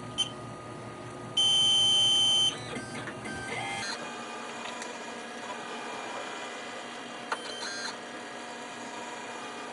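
Jewelry CNC engraving machine starting a job: a loud electronic beep about a second long, then stepper motors whirring in shifting pitches as the machine moves to engrave the inside of a ring. The motors settle into a steady hum.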